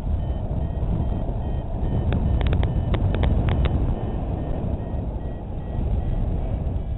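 Wind rushing over the microphone in flight, with a free-flight variometer giving faint short high beeps at changing pitches. A quick run of sharp clicks comes about halfway through.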